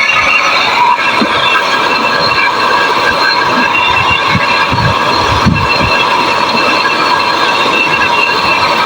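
Brazing torch flame hissing steadily while copper refrigerant pipe joints on an air-conditioner compressor are brazed.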